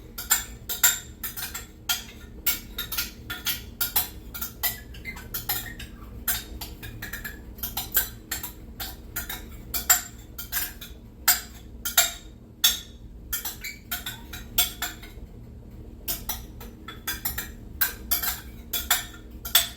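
A utensil clinking and scraping against a container again and again, several quick knocks a second, as the last of the molasses and cane syrup is scraped out with the vinegar. The clinking pauses briefly about three quarters of the way through, then starts again.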